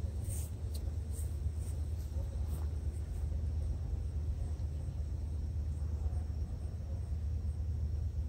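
Steady low rumble of a distant, slow-moving freight train approaching the crossing.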